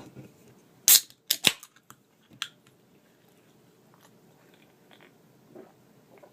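A Diet Coke being opened: a few sharp clicks and a short fizzing snap in the first second and a half, then faint handling noises.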